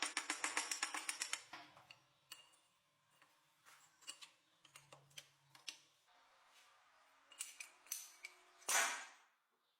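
A quick run of light clicks for about a second and a half, then scattered single clicks and a short scrape near the end.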